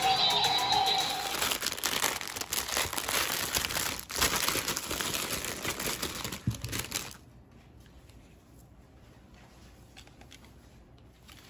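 Clear plastic packaging crinkling and crackling as a plush dancing cactus toy is pulled out of its wrapping by hand, stopping abruptly about seven seconds in and followed by faint handling. In the first second, the toy's electronic music is still fading out.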